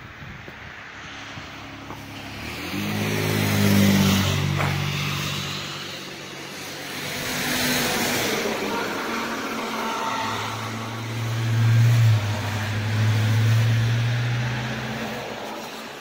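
Road traffic passing close by, including a city bus: tyre and engine noise swells and fades several times, and a low engine drone is loudest about three quarters of the way through.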